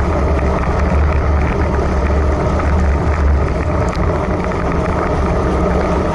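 Wind buffeting the microphone of a camera on a road bike's handlebars at about 28 km/h, a steady low rumble, with tyres hissing on a wet road.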